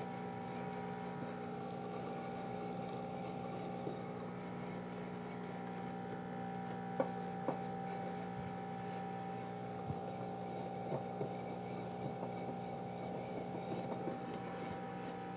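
Ascaso Basic espresso machine's vibratory pump running steadily while a shot of espresso is pulled: a constant hum, with a few faint clicks about halfway through.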